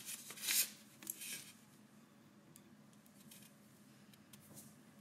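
A pen scratching a few quick strokes on a writing surface in the first second and a half, the loudest just after half a second, then faint room tone.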